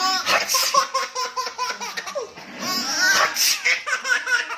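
Baby laughing out loud in a run of quick, repeated laugh bursts.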